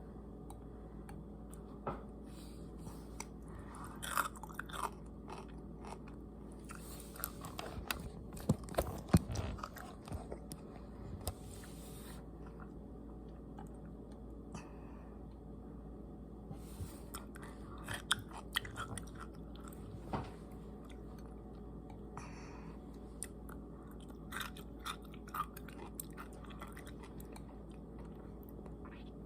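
Close-miked chewing of pickles coated in ranch powder: irregular wet crunches and bites, loudest in a burst of crunching about a third of the way in, with a quieter pause in the middle, over a steady low hum.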